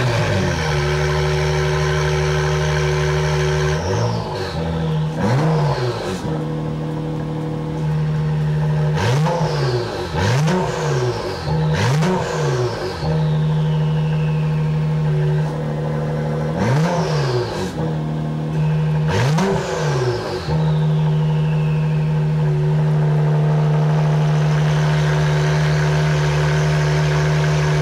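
2022 Acura NSX Type S twin-turbo V6 idling through freshly fitted Pride downpipes and a Science of Speed Valvetronic exhaust, in Sport mode with the active exhaust valve closed. It gives about seven quick rev blips in clusters, each followed by a falling whistle, and then settles back to a steady idle for the last several seconds.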